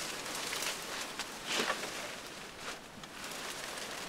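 Rustling and crackling in dry leaves and brush, with irregular sharp crunches, the loudest about one and a half seconds in.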